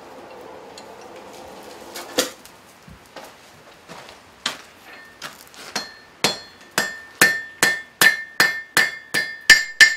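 Hand hammer striking a red-hot horseshoe end on the horn of an anvil, drawing it down to a point. A few scattered blows speed up into a steady run of about two and a half strikes a second, each with a high metallic ring, getting louder toward the end.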